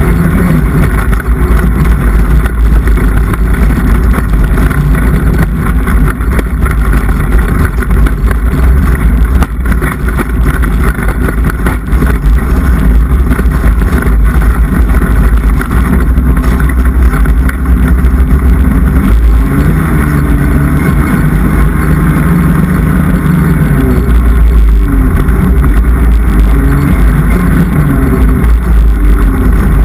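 Polaris mountain snowmobile engine running loud under throttle while climbing in snow. Its note dips and climbs several times in the second half as the rider works the throttle.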